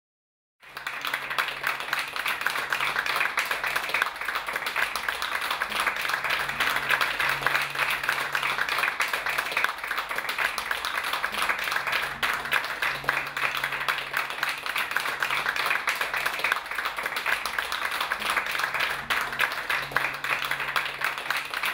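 An audience applauding, the clapping setting in suddenly about half a second in and continuing steadily.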